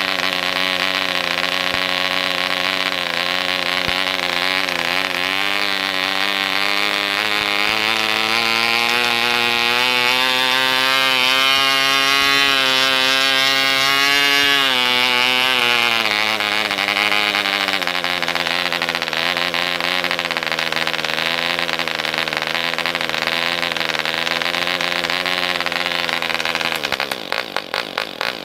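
Jaskolka Mk II 2.5 cc two-stroke model diesel engine running with its propeller on a test stand. Its speed climbs for several seconds and then drops back as the compression screw is turned. Near the end it slows into uneven, separately heard firing strokes.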